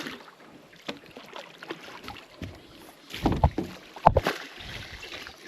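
Small boat on the water being handled: scattered light knocks and a few louder thumps against the hull, the strongest about three and four seconds in.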